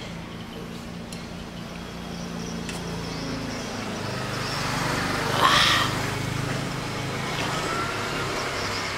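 A motor engine runs steadily in the background, swelling louder toward the middle and then easing off, as a passing vehicle would. About five and a half seconds in comes a brief loud hiss-like noise.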